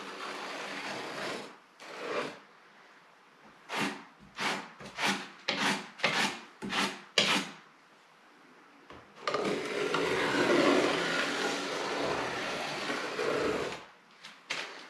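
3-inch putty knife scraping joint compound along a freshly embedded drywall corner bead. It opens with a scrape, then comes a run of about seven short swipes, and about nine seconds in a longer continuous scrape of some four seconds.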